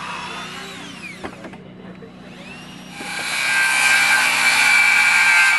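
A cordless drill whines and falls in pitch as it stops, about a second in. About three seconds in, a DeWalt XR cordless circular saw starts up and cuts through a timber board with a loud, steady whine.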